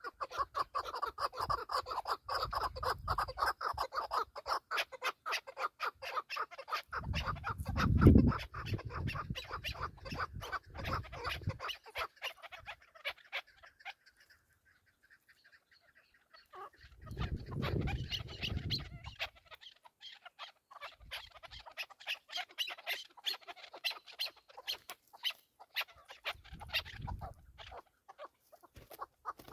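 Chukar partridge calling in long runs of rapid clucking chatter, which drops out briefly about halfway through. A few bursts of low rumble come in under it, the loudest about eight seconds in.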